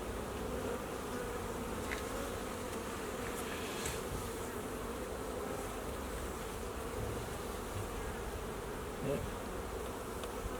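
A colony of honey bees buzzing steadily, a dense, even hum of many wings.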